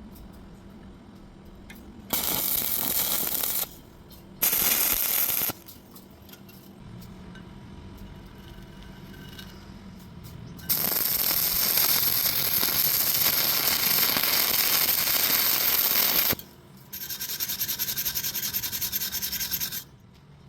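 Welding arc crackling and hissing in four bursts that start and stop abruptly: two short ones about two and four seconds in, then a long run of about six seconds and a last one of about three seconds near the end.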